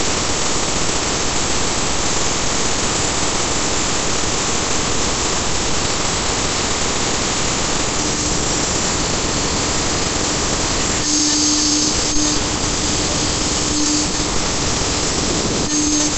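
CNC router spindle running with a conical bit cutting a rotating softwood blank on the rotary axis: a loud, steady mix of motor noise and chipping wood. A low steady hum comes and goes in the second half.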